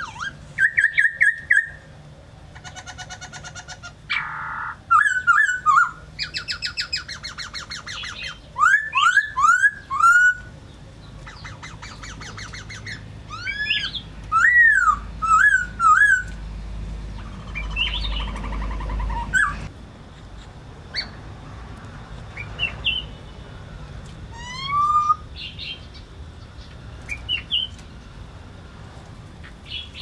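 Black-throated laughingthrushes singing a loud, varied song of arched, slurred whistles and rapid rattling trills, thinning to scattered quieter calls in the second half.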